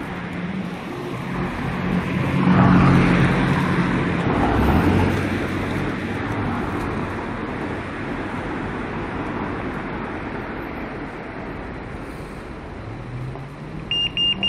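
Road traffic going past, one vehicle's engine louder as it passes about two to five seconds in. Near the end a pedestrian crossing's signal starts a rapid high beeping, the sign that it is safe to cross.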